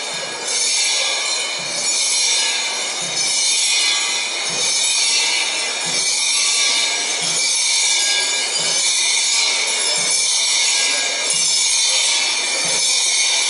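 Many brass hand bells ringing and jingling together, carried by loincloth-clad hadakamairi marchers, with a soft low beat about every second and a half.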